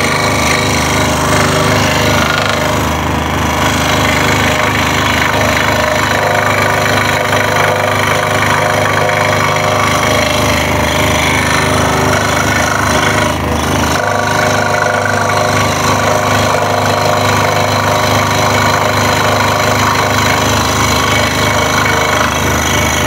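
Scroll saw running steadily while cutting a wooden jigsaw puzzle blank, with a fast rattle from the workpiece hitting onto the saw's table.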